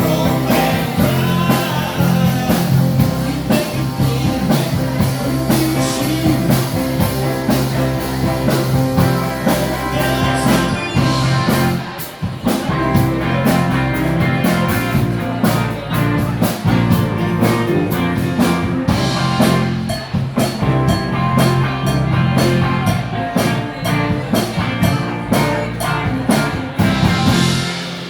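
Live rock band playing with electric guitar, drum kit and singing, heard through the room. The song ends near the end.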